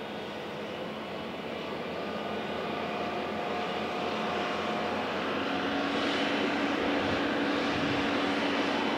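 Steady engine noise with a low hum that grows gradually louder, then drops away abruptly at the end.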